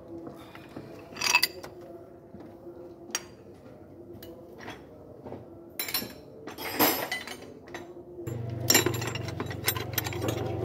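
Hand tools clinking and knocking on metal, scattered single strikes, as a socket and long extension bar are worked on the left engine mount bolts during an engine mount change. A steady low hum comes in about eight seconds in.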